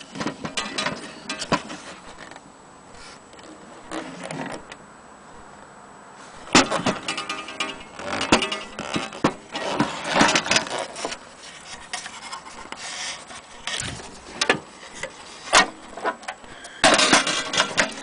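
Handling noise from an antique wall clock's wooden case and dial: irregular knocks, clicks and rubbing, with a few short rattling stretches.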